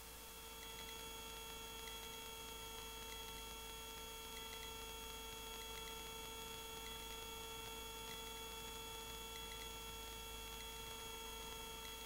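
Faint steady hum with several constant whining tones over a low hiss: the hovering Cabri G2 helicopter's cabin noise as picked up on the intercom audio, muted by the noise-cancelling headset system.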